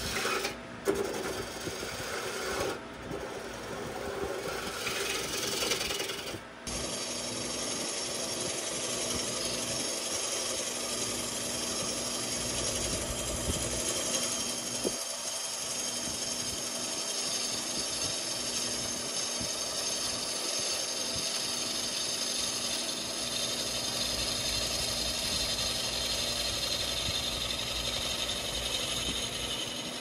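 Bowl gouge cutting the outside of a spinning maple bowl on a wood lathe: a steady scraping hiss of shavings over the lathe's running hum. It breaks off briefly a few times in the first seven seconds, then runs on unbroken.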